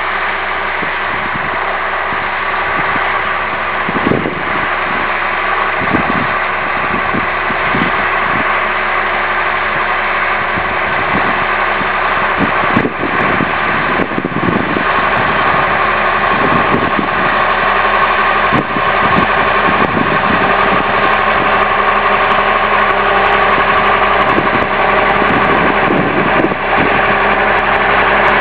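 Fiatagri 160-90 DT's six-cylinder turbo diesel engine working steadily under load while pulling a plough, growing slowly louder as the tractor approaches. Occasional knocks sound over the engine.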